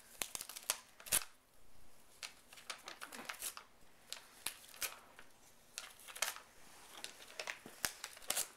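Pet rabbit biting and tearing a strip of paper held out by hand: irregular crisp rips and crinkles, a few quick clicks at a time with short pauses between.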